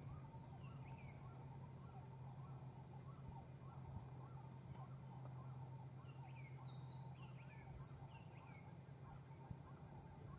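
Faint birdsong: many short chirps and whistles from several birds, overlapping irregularly, over a steady low hum.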